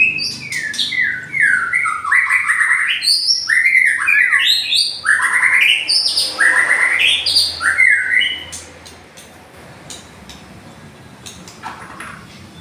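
White-rumped shama (murai batu) singing a rapid run of loud, varied whistled phrases, the burst song fanciers call 'tembakan', for about eight seconds before it breaks off and goes quiet apart from a few faint clicks.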